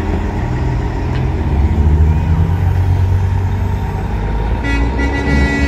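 Semi-truck diesel engines running as trucks roll past in a convoy, with a truck's air horn blowing one held tone starting near the end.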